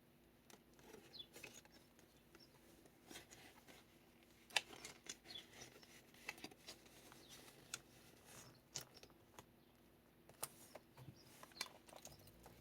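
Paper pages of a handmade kraft-envelope junk journal being handled and turned: faint rustling and crinkling with scattered soft clicks and ticks.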